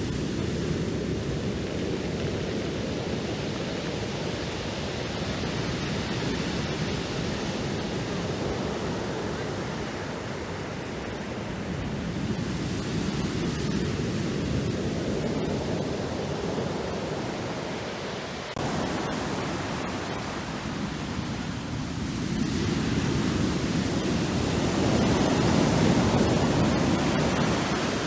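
Black Sea surf: waves breaking and washing up the shore in a steady rushing noise that swells and eases, with a louder wave surging in a little past the middle and peaking near the end.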